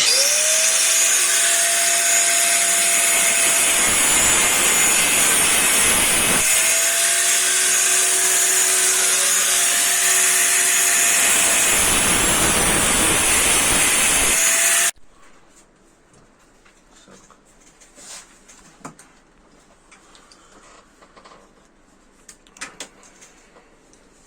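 Electric power-tool motor running at high speed with a steady whine over a loud rush of noise. It spins up at the start, dips and spins up again about six seconds in, then cuts off suddenly about fifteen seconds in. Faint small clicks and knocks follow.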